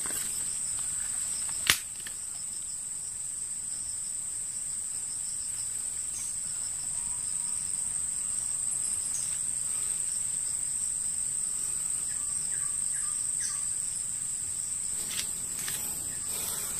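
Steady, high-pitched drone of forest insects, with one sharp click about two seconds in.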